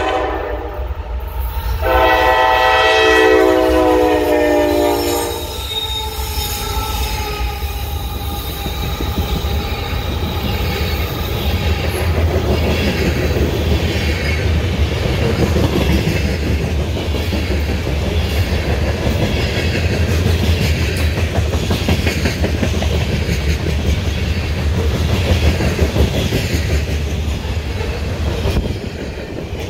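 CSX freight train's diesel locomotive sounding its multi-chime air horn: one blast ending about a second in, then a longer blast from about two to five seconds in. The locomotive then rumbles past and the freight cars roll by, wheels clacking steadily over the rail joints, with a thin wheel squeal shortly after the horn.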